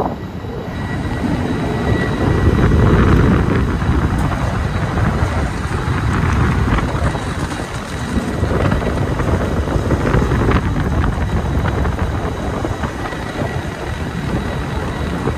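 Strong gusting wind buffeting the microphone, rising and falling in loudness and loudest a few seconds in, with a faint steady high tone underneath.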